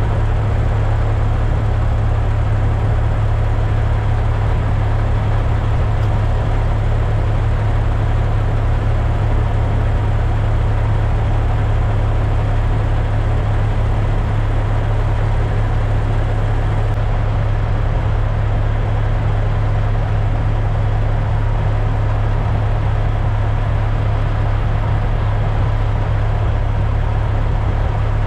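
Heavy truck's Cummins X15 diesel engine running steadily, heard as a constant low drone with a steady rush of road and cab noise over it.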